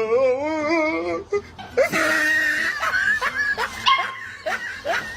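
A dog howling in long, wavering cries: one in the first second, then a higher, longer one from about two seconds in.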